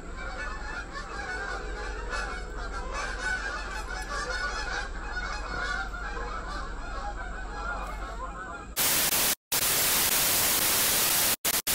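A flock of birds calling in a dense chatter. About nine seconds in, it gives way to a loud burst of TV static that drops out briefly a couple of times.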